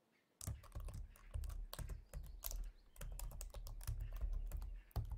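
Typing on a laptop keyboard: a quick, irregular run of key clicks that starts about half a second in and stops just before the end.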